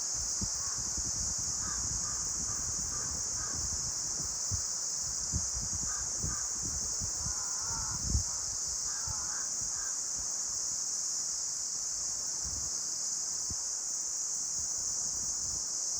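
Wind in trees, with low gusts buffeting the microphone under a steady high hiss. Over the first ten seconds a bird, possibly a crow, calls in several short runs of quick repeated notes.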